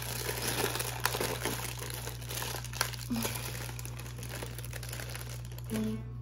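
Plastic bag of cake mix being pulled open and handled, crinkling and crackling with many small clicks.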